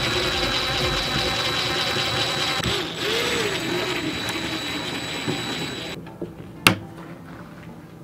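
Power drill running steadily with a high whine for about six seconds, then stopping suddenly, followed by a single sharp click.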